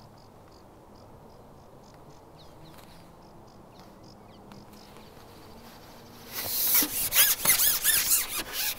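A long match-fishing pole being shipped back, its sections sliding and rubbing with loud, repeated squeaks that start about six seconds in.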